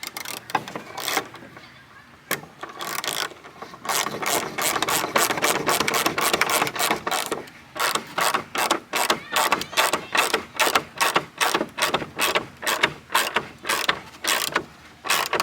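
Ratchet wrench clicking in quick repeated strokes, tightening bolts on a gate post. The strokes start as a dense run, then settle into an even rhythm of about two to three a second.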